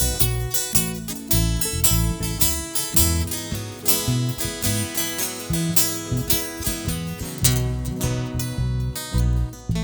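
Acoustic string band playing an instrumental break: strummed acoustic guitar over a steady bass line, with plucked notes on top.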